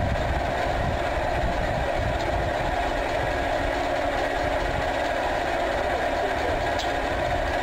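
Homemade solar steam plant running: a twin-piston steam engine turning a 12 kW generator, a steady, unbroken mechanical running noise with a constant mid-range drone.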